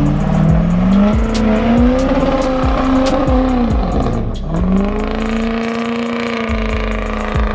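GMC Sierra Denali HD diesel pickup doing a burnout: the engine is held at high revs with the rear tyres spinning on the pavement. The revs climb over the first second or so, hold, dip briefly about four seconds in, then climb back and hold.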